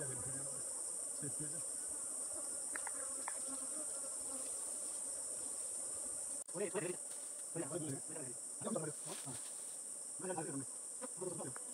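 Honeybees buzzing around a wild colony's hive in a hollow tree as it is opened for its comb, the buzz coming and going in waves as bees fly close, over a steady high-pitched insect chorus.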